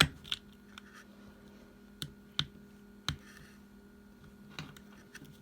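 Screwdriver tip clicking and scraping against the rivet and base of a die-cast toy car as it is pried at: a handful of sharp, scattered clicks over a faint steady hum.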